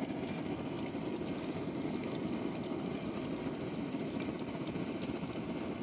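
Batter-coated fish frying in hot oil in a kadai on a portable gas stove: a steady sizzle and crackle.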